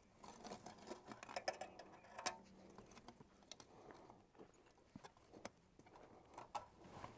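Near silence with faint, scattered clicks and light rustling.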